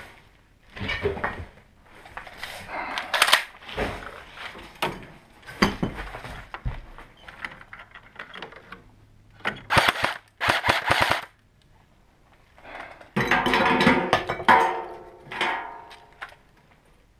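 Airsoft gun shots: a quick string of sharp cracks about ten seconds in, among irregular knocks and scuffs.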